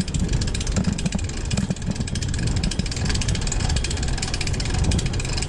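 Wind buffeting the microphone of a body-mounted camera on a rider hanging from a canyon swing: a steady, loud rumble with constant flutter.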